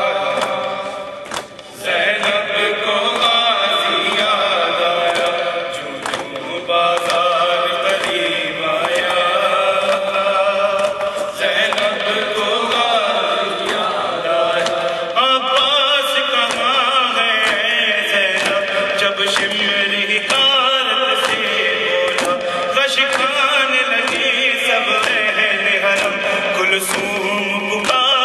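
A man singing a noha, an Urdu lament, into a microphone in a melodic, wavering chant. Sharp percussive hits sound throughout behind the voice, and the singing breaks off briefly about a second and a half in.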